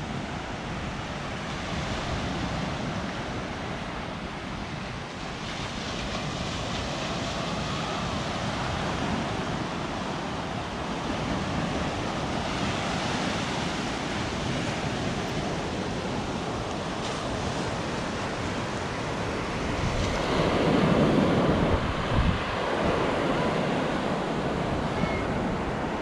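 Sea waves breaking and washing up a sandy beach in a continuous rush that swells and ebbs, with wind buffeting the microphone. There is a louder surge about twenty seconds in.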